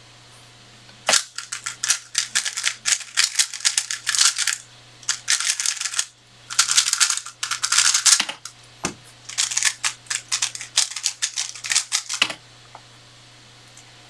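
Rapid clicking and clacking of a 3x3 speedcube being turned fast during a timed solve, with two brief pauses, ending about eight seconds in with a couple of knocks. From about nine seconds in there are three more seconds of turning clicks as the cube is scrambled for the next solve.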